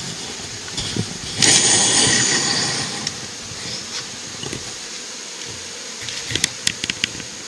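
Honeybees buzzing around their hive, with a louder rush of noise about a second and a half in that fades over the next second or so, and a few quick, sharp clicks near the end.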